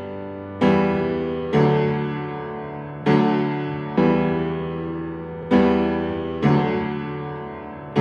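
Background piano music: slow chords struck about once a second, each left to ring and fade before the next.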